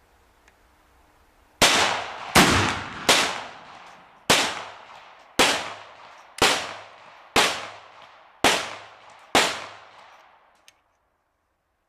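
Nine rifle shots in quick succession, roughly one a second, each sharp report dying away over about a second.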